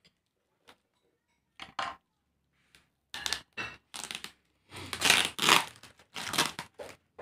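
A few small snips and clicks as scissors cut into packing tape on a cardboard parcel. From about three seconds in comes a run of loud tearing and crinkling as the tape and plastic wrap are ripped off by hand, loudest just past the middle.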